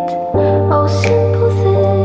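Background music: gentle instrumental with sustained chords, a deep bass note coming in about a third of a second in.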